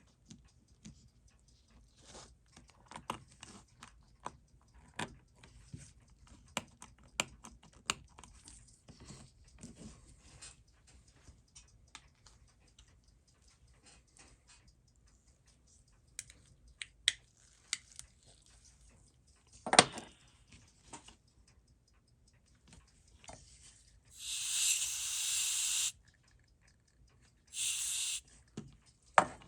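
Small metal watchmaker's tools clicking and tapping on the parts of a Seiko 6139 chronograph being taken apart, with one louder click about two-thirds of the way in. Near the end come two short hissing bursts.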